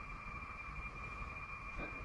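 Steady eerie hum in the sky: a thin high tone over a lower, wider drone and a low rumble, with a brief faint sound near the end.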